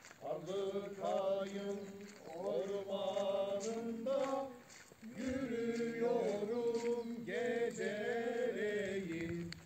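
A man singing a slow melody with long held, wavering notes and no clear words, pausing briefly about halfway through.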